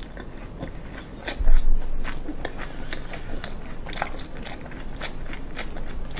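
Close-miked chewing of a mouthful of mullet sashimi with raw garlic and green chili: a run of irregular clicks and crunches, with one louder dull thump about a second and a half in.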